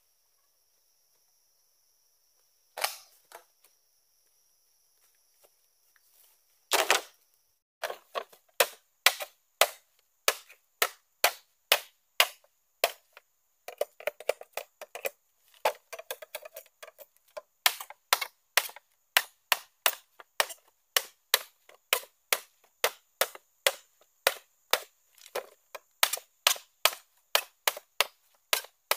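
A blade chopping into green bamboo poles. Two single knocks come first, then a steady run of sharp strikes, about two a second, from about eight seconds in.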